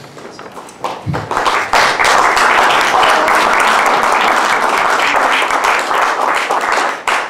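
A roomful of people applauding: the clapping builds about a second in, holds steady, and dies away near the end.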